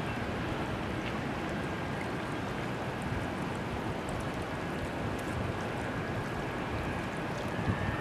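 Shallow stream water running steadily over gravel, a constant rushing.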